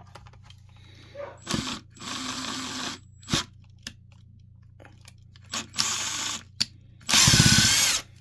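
A drill run in three short bursts, each lasting up to about a second, with the last and loudest near the end, and a few clicks between them, as a screw is worked out of the alarm's plastic housing.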